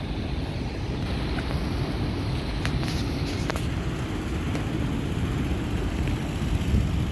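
Wind buffeting the microphone: a steady low rumble, with a few faint clicks about three seconds in.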